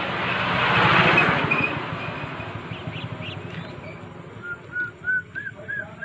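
A passing vehicle, its noise swelling and fading over the first two seconds. About four and a half seconds in, quail chicks begin peeping: a steady run of short, slightly rising peeps, about three a second.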